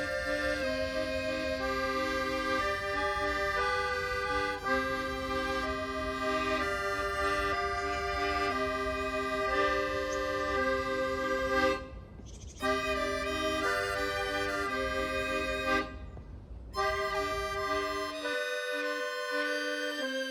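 Instrumental background music of long held notes and chords, breaking off briefly twice in the middle, with a low rumble under it that stops near the end.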